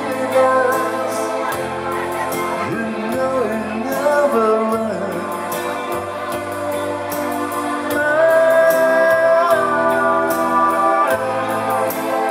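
Live song performance: an electronic keyboard playing chords, with singing over it and longer held notes a little past the middle.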